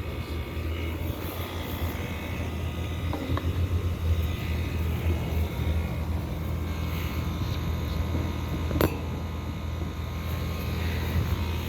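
Outdoor air conditioner condensing unit running: a steady low compressor hum with the fan's whir over it, and a single sharp click about nine seconds in.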